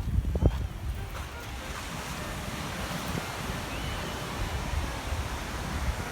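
Sea waves washing up on a sandy beach, a swelling hiss of surf, with wind buffeting the microphone in a low rumble.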